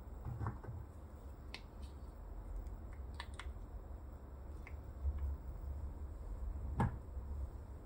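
Small plastic figure pieces clicking and tapping as they are handled and fitted together, a few scattered clicks, with a louder knock about seven seconds in as a piece is set down on a wooden tabletop. A faint steady low hum runs underneath.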